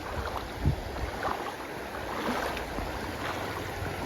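River water rushing in a steady wash, with a low thump about a second in.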